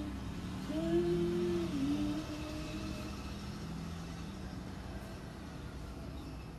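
A voice humming or singing a few held notes, the notes fading out about two seconds in, over a steady low hum.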